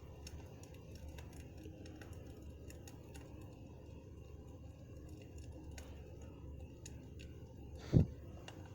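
Campfire crackling: a steady low rush of burning with scattered sharp pops and snaps. A short low thump stands out near the end.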